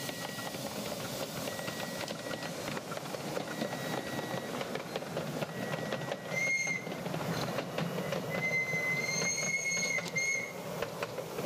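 Miniature railway train running on the track, its wheels clicking over the rail joints. A high, steady wheel squeal comes in briefly about six and a half seconds in and again for about two seconds near the end.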